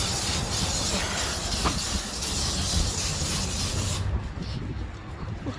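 Aerosol can of brake cleaner spraying onto a transmission case with a steady hiss that cuts off about four seconds in.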